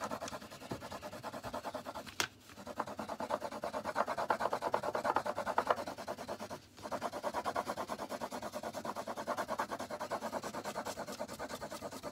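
A fat graphite stick scribbling rapidly back and forth over thin paper in quick, even rasping strokes, with two short pauses, one about two seconds in and one near seven seconds. The back of a drawing is being shaded solid with graphite to make a transfer for tracing.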